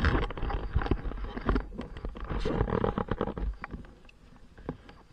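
Rumbling and rustling handling noise on a helmet-mounted camera's microphone, with scattered knocks and clicks, dropping away about three and a half seconds in; no engine is running.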